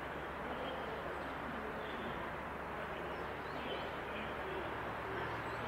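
Birds chirping, with cooing that fits pigeons, over a steady outdoor rumble. The approaching locomotive does not stand out; it is still far off.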